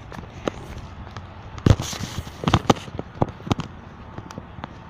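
Irregular thumps and knocks from a phone jostled in the hand while its holder runs across grass: footfalls and handling noise.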